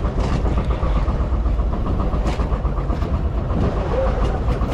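An engine running steadily: a low rumble with a fast, even ticking running through it.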